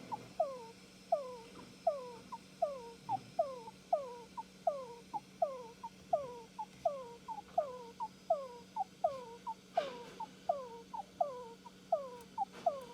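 Djungarian hamster making a steady run of short squeaky calls, about one and a half a second, each a quick high chirp followed by a longer note that glides down in pitch.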